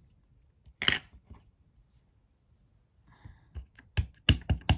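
Clicks and taps of rubber-stamping supplies being handled on a desk, including a clear acrylic stamp block being picked up. There is one sharp knock about a second in and a quick run of clicks and taps near the end.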